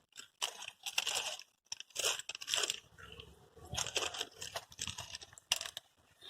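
Irregular bursts of crunching and crinkling from biscuits and their wrapper.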